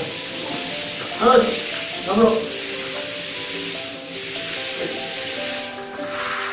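Shower hose water spraying steadily onto a tiled bathroom floor, a constant hiss. Two short pitched cries stand out, about a second and two seconds in, with background music underneath.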